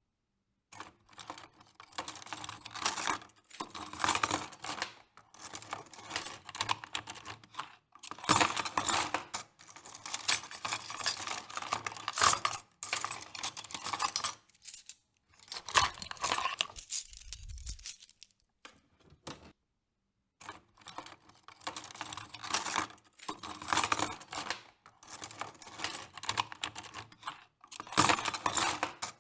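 Metal cutlery clattering and clinking as it is handled in and out of a cutlery drying rack, in irregular bursts of a second or two with short pauses, and a longer pause about two-thirds of the way through.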